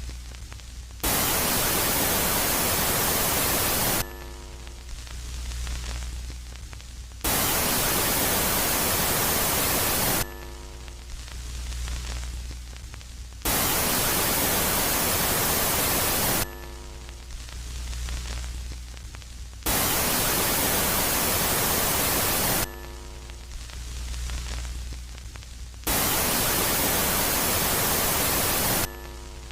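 Space-ambience track for Jupiter's moon Megaclite, switching between a loud and a quiet phase. Each loud phase is a burst of hiss, like radio static, about three seconds long, and it comes back about every six seconds, five times in all. In between, a quieter low hum carries faint steady tones.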